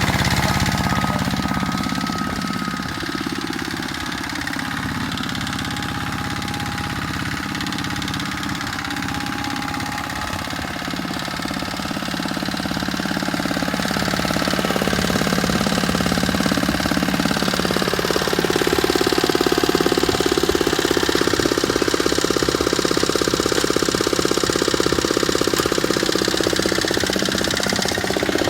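Tractor engine running with a fast, knocking firing beat. It eases off a little early on, then grows louder again from about two-thirds of the way in.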